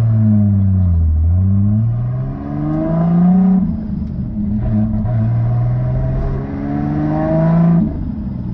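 Toyota Chaser JZX90's turbocharged straight-six engine heard from inside the cabin, revving hard under throttle while drifting. The revs fall in the first second, climb, dip briefly about halfway, climb again, and drop suddenly near the end.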